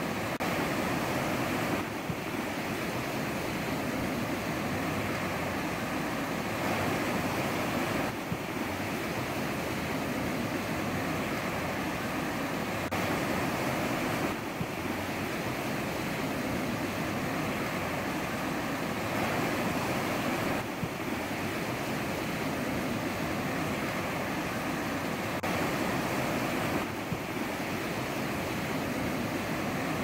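Ocean surf washing onto a shore: a steady rush of breaking waves that swells slightly every six seconds or so.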